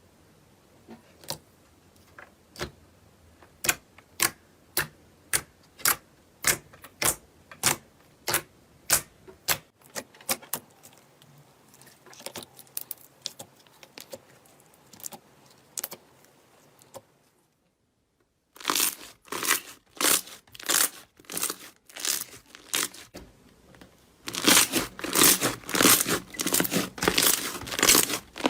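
Slime being pressed and worked close to the microphone, giving sharp popping clicks about two a second. After a brief break they come back denser, and near the end they turn into louder, rapid crackling.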